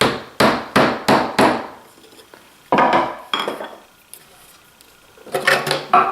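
Hammer tapping on a wooden piece to seat it in a wooden box: five quick taps, then two more, then a short cluster of knocks near the end.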